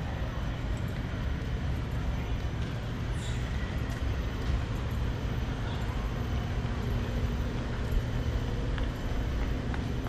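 Steady low outdoor rumble with no distinct events standing out.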